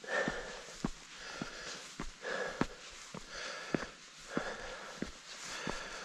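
A person breathing hard in and out, about one breath a second, close to the microphone, with scattered sharp clicks and knocks in between.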